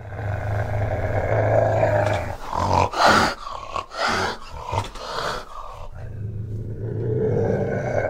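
An animal growling: a long, low growl, then a run of shorter calls in the middle, then another long, low growl.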